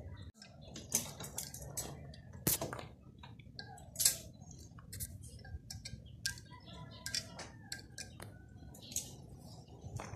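Sporadic light clicks and taps of a wrench and metal hand tools working at the flywheel end of a removed air-cooled VW Beetle engine.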